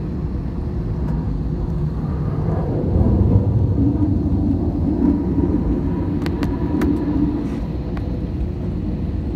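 Low, steady rumble of an Airbus A330 taxiing, heard inside the cabin. It swells for a few seconds in the middle, and a few light clicks come about two-thirds of the way through.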